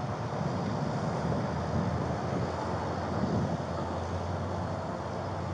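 Steady low rumble of vehicle engines and traffic, with wind buffeting the microphone.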